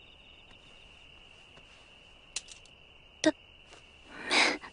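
Steady high chirring of crickets at night. A few short clicks come about two and a half and three seconds in, and a brief, louder rush of noise comes near the end.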